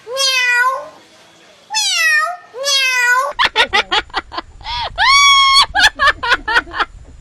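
A cat meowing: two long meows bending in pitch, then, after about three seconds, a quick string of short, higher cries and one longer call.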